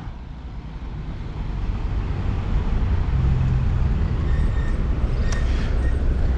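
City street traffic: a steady rumble of passing vehicles and engines, fading up over the first second.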